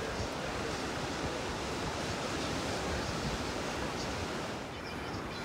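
Pacific surf breaking and washing among shoreline rocks: a steady rush of waves.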